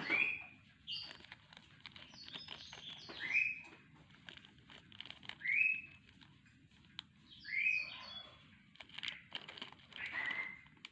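A bird calling: short curved chirps that recur about every two seconds, some with higher notes above them, with scattered light clicks in between.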